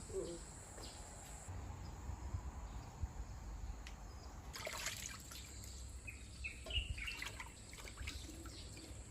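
Faint trickling and dripping water with a few light knocks, and a few short bird chirps.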